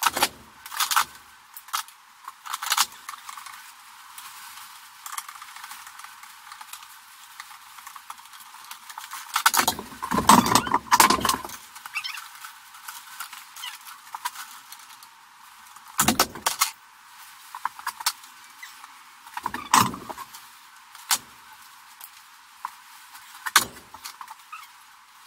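Scattered metallic clicks and knocks of hands and tools working inside a steel breaker panel, with a louder burst of clatter about ten seconds in and single knocks later on.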